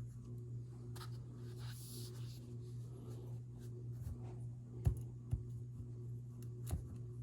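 Fingers squeezing and crunching packed powder, giving soft squeaky crunches, with a few sharper clicks about five seconds in and again near the end. A steady low hum runs underneath.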